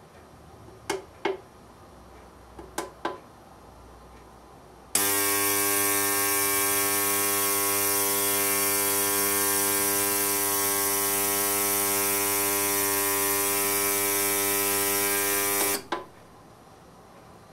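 BAKU BK-3550 ultrasonic cleaner: a few clicks as its control buttons are pressed, then about five seconds in it starts with a loud, steady buzz and high hiss. It runs for about eleven seconds and cuts off abruptly near the end.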